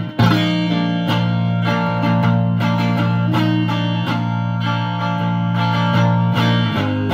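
Electric guitar (a stock Telecaster with vintage pickups) played through a TopHat Super Deluxe 2x10 tube combo with EL34 power tubes and two Greenback 10-inch speakers, set for a clean, Fender-like tone with the volume most of the way up. A run of picked chords and single notes, a new attack every half second or so, over low notes left ringing.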